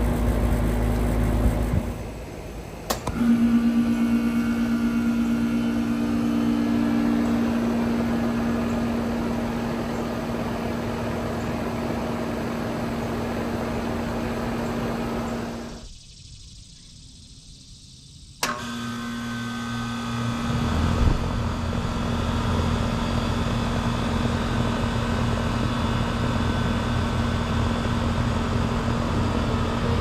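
Outdoor air-conditioner condensing units running with a steady compressor hum and fan noise. After a short quieter gap, a Goodman condenser starts with a sharp click: its compressor hum comes in at once and its fan spins up over the next few seconds, getting louder.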